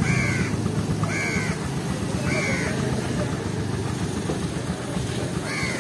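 A crow cawing, four harsh calls about a second apart with a pause before the last, over the low steady rumble of street traffic.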